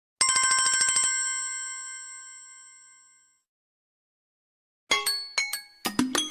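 Samsung Galaxy A12 alert tone: a fast bell-like trill for about a second that then rings out and fades over a couple of seconds. After a short silence, near the end, the next tone starts with a quick run of bright chime notes.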